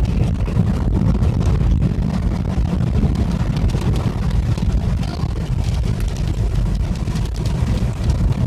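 Steady car-cabin noise while driving with the windows cracked open: low wind buffeting through the gaps and road rumble, with faint scattered ticks.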